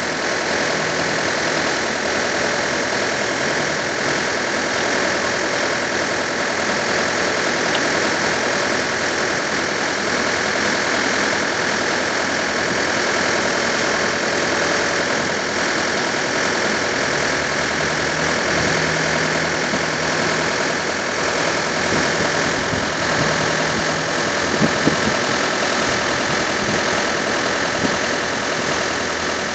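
Backhoe loader's diesel engine running steadily, with a few short sharp knocks about 25 seconds in.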